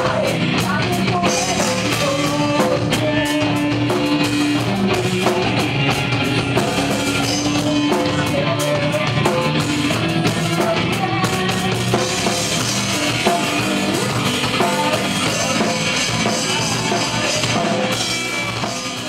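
Metal band playing live: drum kit, distorted guitars and a female lead singer, all at a steady loud level. It fades out near the end.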